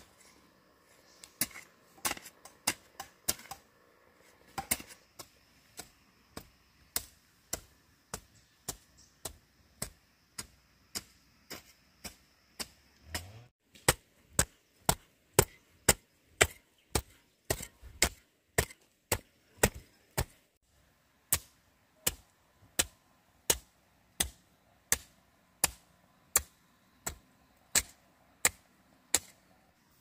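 Steady chopping: sharp, crisp strikes at about one and a half a second. They become louder and more even from about halfway through, after a brief break.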